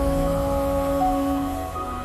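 Instrumental background music with long held notes over a low bass, a new note coming in about a second in.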